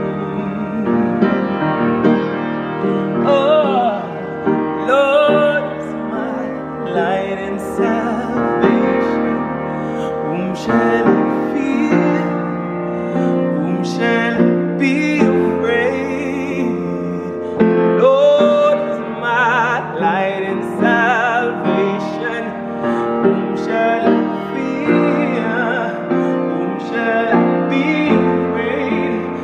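Upright piano being played, with a man singing along over it, his voice wavering on held notes.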